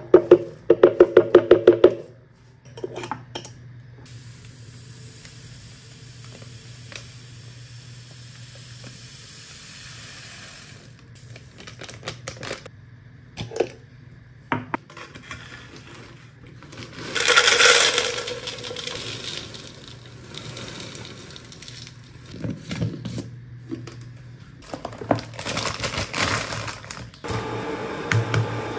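Coarse pink salt shaken from a plastic tub into a small glass jar: grains rattle against the glass in a quick run of taps. Scattered clicks of glass jars and lids on a stone counter follow, with two bursts of hissing grain-like pouring later on.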